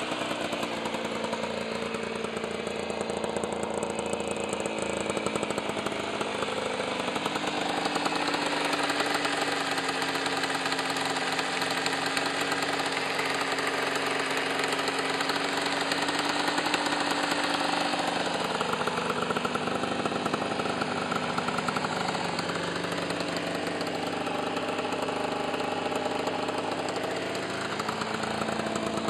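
Aprilia ETX 125's single-cylinder two-stroke engine running, its revs slowly rising and falling a few times.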